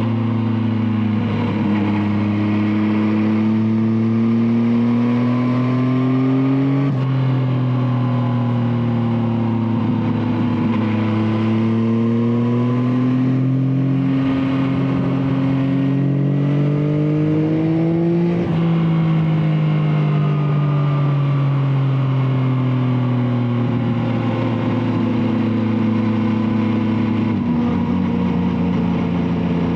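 Yamaha Tracer 9's three-cylinder engine through an Akrapovic exhaust, heard while riding. Its pitch climbs slowly and sags, breaking off about 7 and 18 seconds in, and drops to a lower steady note near the end.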